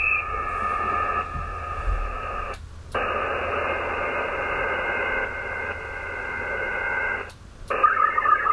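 Winlink HF digital data signal coming from the transceiver's speaker: a dense multi-tone modem hiss and warble, cut off by two brief pauses about 3 s and 7.5 s in as the two stations trade turns. After the second pause the tones become busier and choppier. This is a slow, weak link, running at only about 80 bps.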